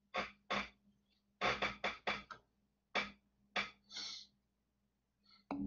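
A squeaky chair creaking in a string of about ten short, sharp creaks at uneven intervals, over a faint steady low hum.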